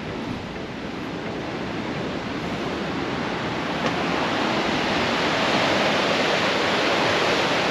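Sea surf surging and washing against eroded limestone rocks, a steady rush that grows gradually louder.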